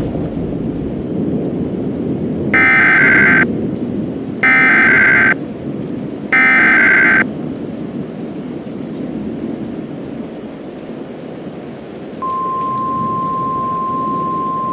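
Three short bursts of Emergency Alert System SAME header data, harsh digital warbling about a second each with brief gaps, mark the start of an emergency alert. About twelve seconds in, the steady single-pitch NOAA Weather Radio warning alarm tone begins. Under it all runs a continuous background of rain and thunder.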